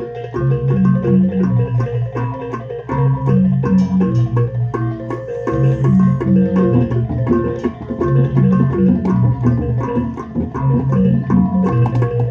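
A Balinese balaganjur gamelan playing a fast, repeating interlocking pattern on tuned bronze gongs, with steady sharp strokes over it.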